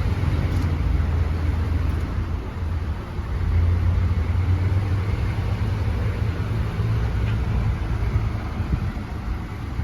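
A car running on the road: a steady low engine and road rumble, swelling a little about three and a half seconds in.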